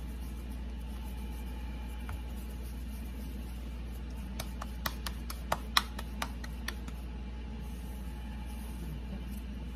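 Hands patting a ball of corn masa flat between the palms: a quick run of about eight sharp pats over two seconds, midway through, over a steady low hum.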